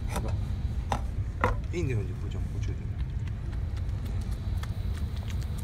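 Small dog licking and chewing corn kernels from a person's hand, with a few sharp wet clicks in the first second and a half, over a steady low rumble.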